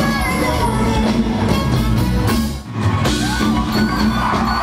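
A live cumbia orchestra plays loudly, with drums, electric guitar and a lead vocal. The sound drops out for a moment just past halfway, then the band comes back in.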